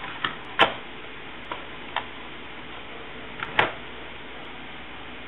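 A handful of short, separate clicks and knocks from handling the Zalman GV1000 GPU cooler and its packaging. The two loudest come about half a second in and a little past the middle, over a faint steady hiss.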